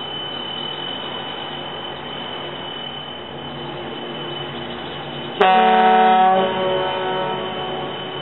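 A towboat's horn sounds one blast about five seconds in: a single pitched tone with many overtones, held for about a second, then trailing away over the next second or so, over steady background noise.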